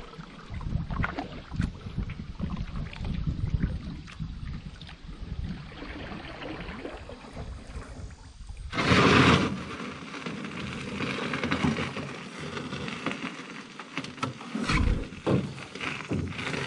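Small canoe on the water: water sloshing with scattered knocks on the aluminium Grumman 129 Solo canoe's hull, and wind buffeting the microphone. A brief, louder rush of noise comes about nine seconds in.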